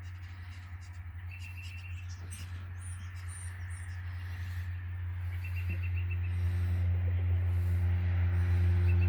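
A small bird repeating a short rapid trill three times, with a few high chirps, over a steady low hum. About halfway through, a held, droning musical tone fades in and grows louder.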